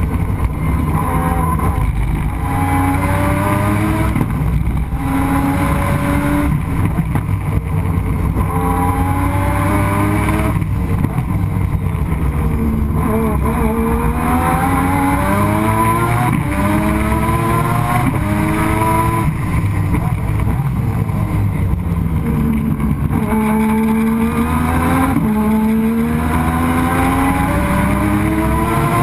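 Mazda RX-7 race car's turbocharged 20B three-rotor rotary engine at full race effort, heard from on board: its pitch climbs through each gear, drops back at each gear change, and falls away when the driver lifts for corners. It is running on reduced boost, about 8 psi instead of 15, after a boost loss.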